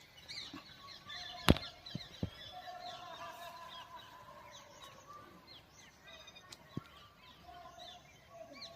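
Several birds chirping and calling, many short high chirps over lower sliding calls. A single sharp click about a second and a half in is the loudest sound, with a few fainter clicks after it.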